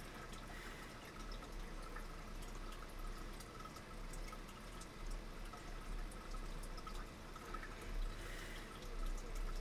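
Faint small clicks and ticks of hands adjusting and turning a metal rotary fly-tying vise, over a steady low hum.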